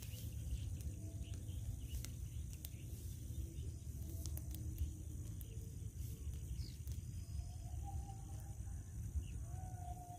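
Rural field ambience: a steady high drone of crickets and insects over a steady low rumble, with a few faint short calls and sharp clicks.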